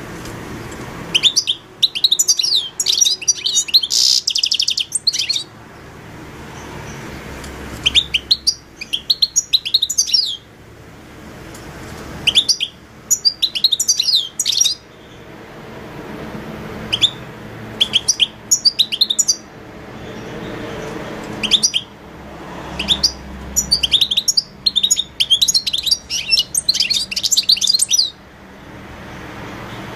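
European goldfinch singing: bursts of rapid, high twittering phrases lasting two to five seconds, with pauses of a few seconds between them, about six phrases in all.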